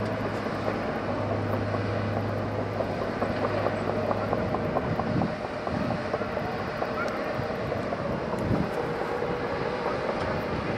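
Diesel engines of heavy construction machinery running: a steady low drone whose deepest hum drops out about four seconds in, followed by uneven low rumbles.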